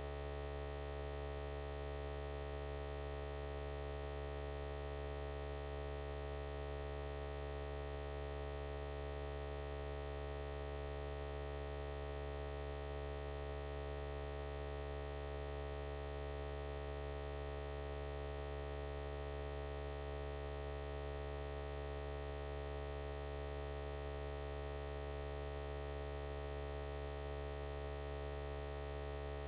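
Steady electrical hum made of several constant tones.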